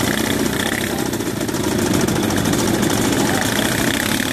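Several motor scooter engines running at low revs with a steady hum as the scooters move off slowly in a group.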